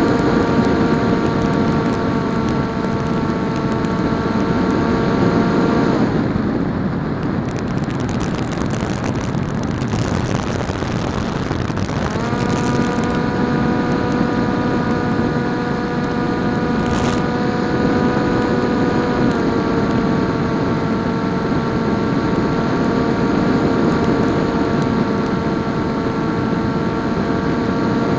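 PopWing RC flying wing's electric motor and propeller running at a steady whine over rushing air noise. The whine cuts out for about six seconds while the air noise continues, then comes back a little higher and eases down slightly about two-thirds of the way through, as the throttle is cut, reopened and backed off.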